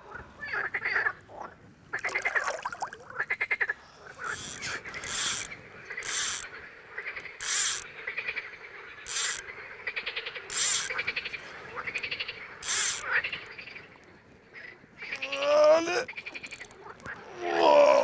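Frogs croaking in chorus, many short calls in quick succession. Near the end come two louder calls that glide in pitch.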